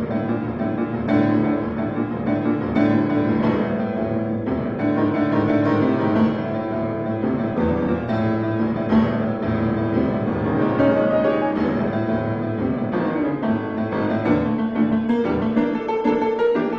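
Piano playing a busy passage of many notes struck in quick succession, low and middle registers sounding together.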